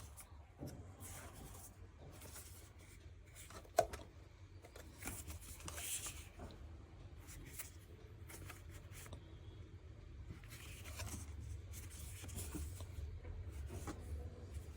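Packaging of an Apple power adapter being handled and opened: irregular rustling, scraping and tearing of cardboard and paper, with one sharp click about four seconds in.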